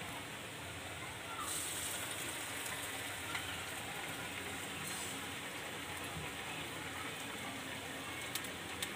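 Urad dal vadas deep-frying in hot oil in a kadhai: a steady sizzle that grows brighter about one and a half seconds in. A couple of small clicks near the end.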